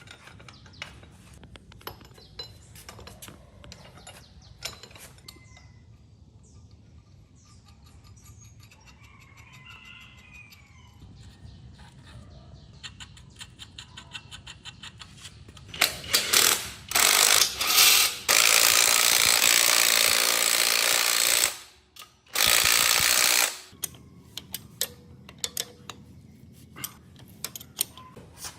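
Workshop hand-tool work with scattered metal clicks and a quick ratcheting run, then a loud hiss that comes in short spurts, holds steady for a few seconds, and returns in one more short spurt before the clicking resumes.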